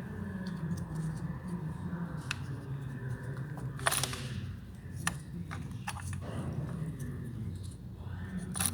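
A steady low hum with several short, sharp clicks and taps scattered through it; the loudest comes about four seconds in.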